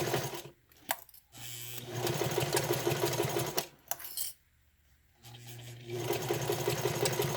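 Singer 237 sewing machine stitching through vinyl in short bursts, stopping and starting as it sews back and forth, with a few sharp clicks in the pauses. It picks up speed again near the end.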